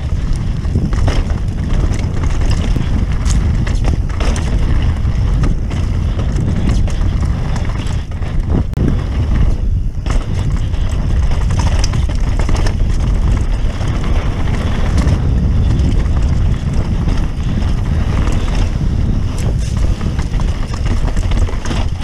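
Mountain bike rolling fast down a rocky dirt trail: tyres on dirt and stones with frequent knocks and clatter from the bike over bumps, under heavy wind buffeting on the camera microphone.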